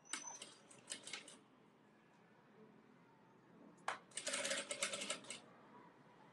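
Industrial sewing machine stitching in short bursts: two brief runs of rapid ticking near the start, then a single click and a longer run of about a second past the middle.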